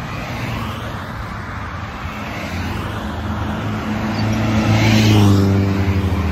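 Road traffic: a car passing close by, its engine and tyre noise swelling to a peak about five seconds in.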